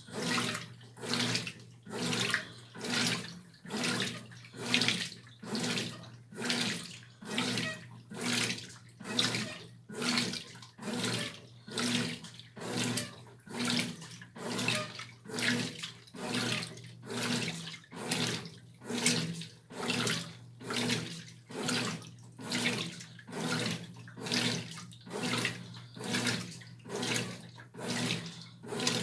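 Brastemp Tira Manchas Pro 12 kg washing machine (BWR12AB) agitating a load in water: a swish of water about once a second over a steady motor hum.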